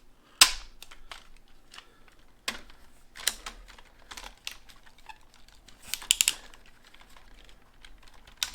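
Hard plastic clicks and snaps of a vintage Bandai White Tiger Zord toy's parts being moved and popped into place as it is transformed. A sharp snap about half a second in is the loudest, with scattered clicks after it and a quick run of clicks about six seconds in.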